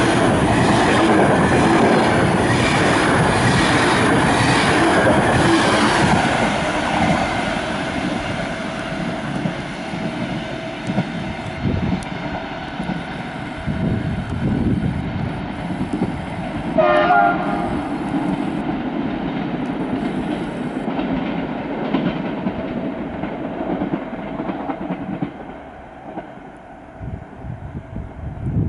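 Express passenger train's coaches rushing past at speed, wheels clattering over the rail joints, the noise dying away after about six seconds as the train pulls off into the distance. About 17 seconds in, a short horn blast sounds.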